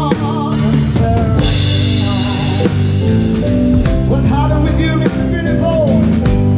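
Live band playing with a steady beat, the drum kit close up: cymbal and drum strikes over bass, electric guitar and a melody line that bends in pitch.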